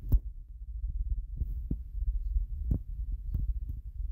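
Low rumble with irregular soft thumps and a few short clicks, over a faint steady hum.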